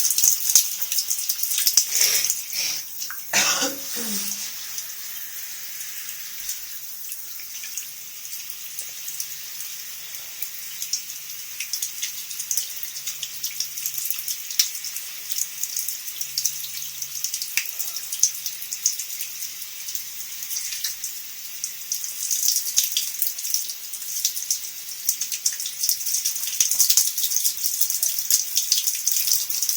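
Shower running, its spray hissing with many small splashes; the spray is softer through the middle and louder again near the end. About three seconds in there is a brief sound falling in pitch.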